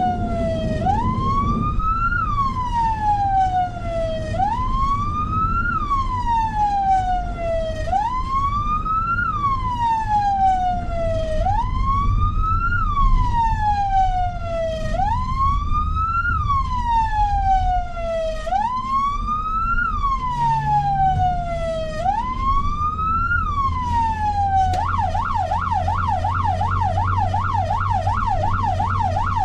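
Emergency vehicle's electronic siren on wail: each cycle rises quickly and falls slowly, repeating every two to three seconds. Near the end it switches to a fast yelp, with a steady low rumble of engine and road noise underneath.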